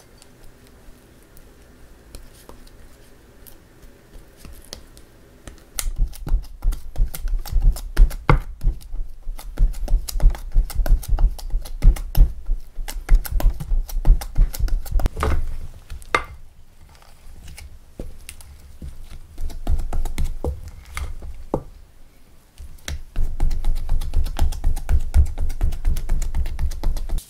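Steamed mugwort rice-cake dough being kneaded and pounded in a glass bowl: runs of rapid thumps that start about six seconds in, with short pauses between runs.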